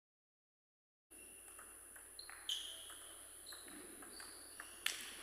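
After about a second of silence, a table tennis rally: the ball clicks off the bats and the table at an irregular pace, with two louder knocks and a few short high squeaks.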